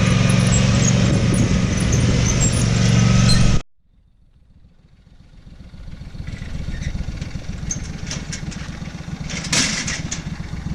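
A vehicle engine running steadily and loudly, which cuts off suddenly about a third of the way in. Faint outdoor background noise follows and slowly grows, with a few sharp clicks near the end.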